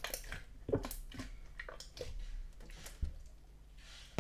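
Soft pudding-textured water slime being worked by hand, giving irregular sticky clicks and wet squelches, with a couple of sharper pops.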